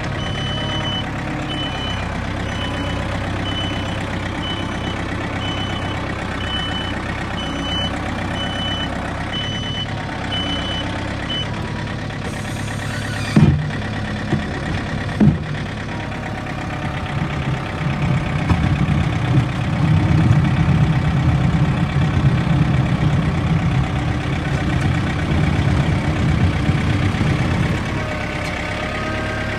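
Backhoe's diesel engine running steadily while a reversing alarm beeps about once a second, stopping after roughly eleven seconds. Two sharp knocks follow a couple of seconds apart. The engine then works harder and louder for about ten seconds as the machine pushes snow.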